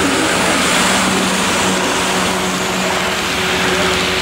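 Model freight train rolling close past: a steady rolling noise of wheels on track, with a low steady hum beneath.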